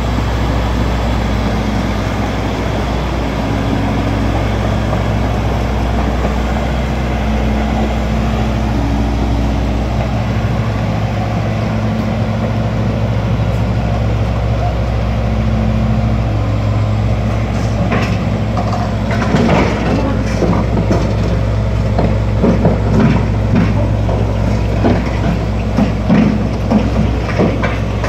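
Komatsu D85ESS-2 crawler bulldozer's diesel engine running steadily. In the second half it crawls up onto a trailer, and the steel tracks add repeated clanks and knocks.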